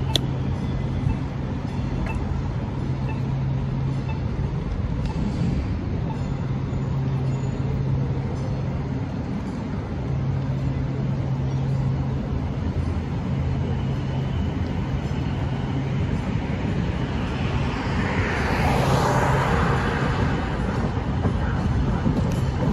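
Street traffic noise and a steady low rumble of riding, heard from a camera mounted on a moving bicycle, with a low hum that comes and goes. A passing vehicle swells into a louder whoosh about three-quarters of the way through and fades.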